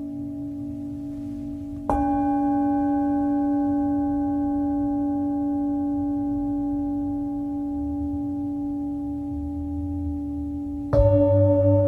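Large Himalayan jambati singing bowl struck twice, about two seconds in and again near the end, each strike ringing on as a deep, sustained tone with several higher overtones. After the second, louder strike the tones pulse in a slow wavering beat.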